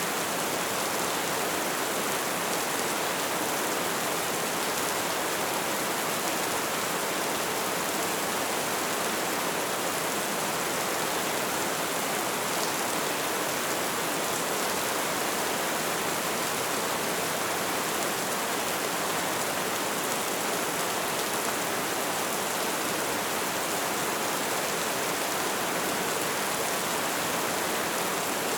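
Steady rain falling: an even, unbroken hiss of rainfall with no single drops or pauses standing out.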